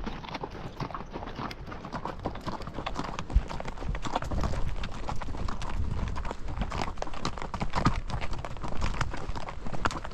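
Horses' hooves clip-clopping on a trail in an irregular patter of many hoofbeats.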